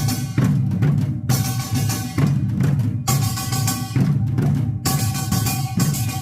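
Korean buk barrel drums playing a Yeongnam nongak rhythm in a steady repeating cycle, with ringing metallic tones above the drum beats.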